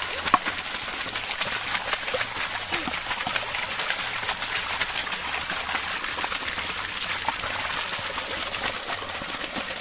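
Water running steadily as raw chicken leg pieces are washed under it.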